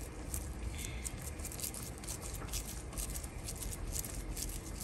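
Oiled hands squeezing and patting a ball of mashed plantain dough, making many small, irregular sticky clicks and squishes.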